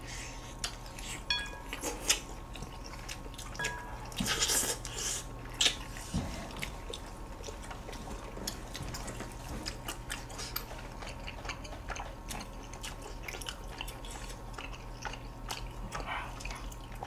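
Close-miked eating of boiled chicken from samgyetang: quiet chewing and wet sounds of meat being pulled apart by hand, with scattered light clicks, busiest about four to six seconds in.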